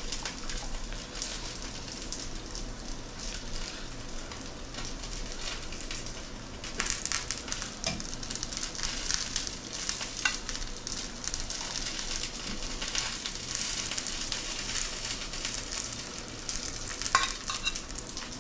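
Pork and chive dumplings sizzling in oil in a skillet, a steady crackling hiss that grows brighter and busier about a third of the way in. A few sharp metal clicks of tongs near the end.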